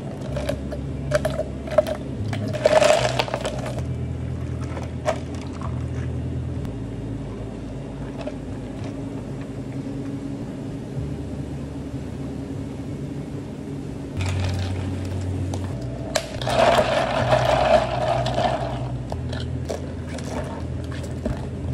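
Iced drinks being made at a café counter: plastic cups knocked and set down, syrup squeezed and soda poured from a can into a cup. Scattered clicks and knocks come early, and a longer noisy pour rises about sixteen seconds in, over a low steady hum.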